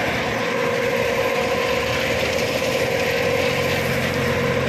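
Heavy machinery running steadily with a constant droning hum; a lower hum grows stronger about three and a half seconds in.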